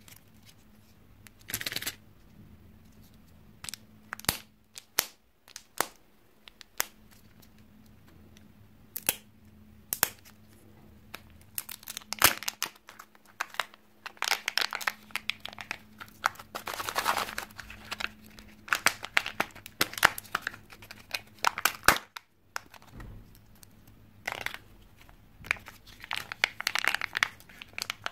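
Kinder Joy plastic egg shells being handled and opened: scattered sharp plastic clicks and taps, with stretches of crinkling and tearing as the foil seals on the egg halves are peeled back, the longest in the middle and near the end.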